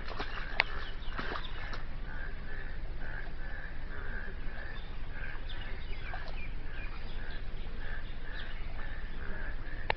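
Frogs calling from floodwater after rain: a steady pulsing call repeating about twice a second, with a sharp click about half a second in and another at the very end.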